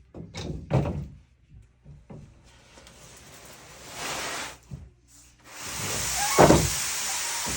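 A plywood sheet and the swing-out arms of a workbench being flipped over: a few wooden knocks, a rushing, sliding hiss, and one heavy thud about six and a half seconds in as it comes down.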